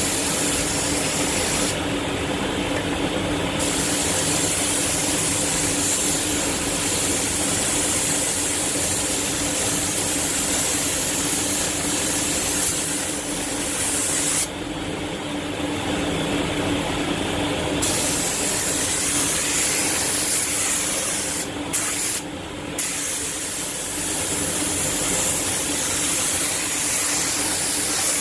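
Iwata Hakone spray gun hissing with compressed air as it sprays clear coat. The hiss breaks off about four times as the trigger is let go between passes. A steady low hum runs underneath.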